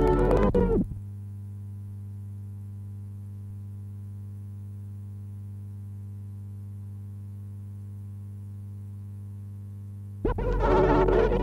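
Background music breaks off about a second in, leaving a steady electrical hum on the soundtrack for about nine seconds; music starts again near the end.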